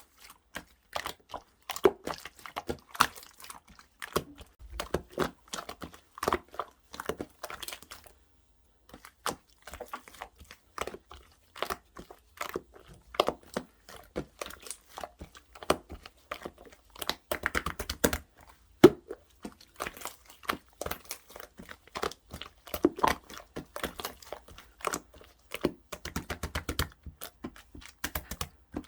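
Hands squeezing and poking yellow clear slime: a dense, irregular run of short sticky clicks and pops, stopping for about a second around eight seconds in.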